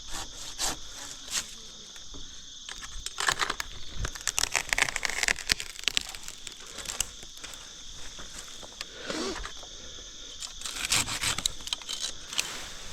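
Bursts of rustling, crackling and scraping come three times, over a steady high chirring of crickets.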